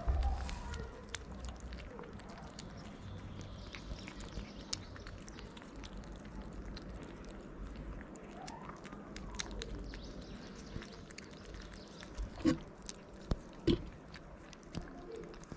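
Kittens chewing and smacking wet cat food from a plate, a steady run of small wet clicks, with two louder knocks near the end.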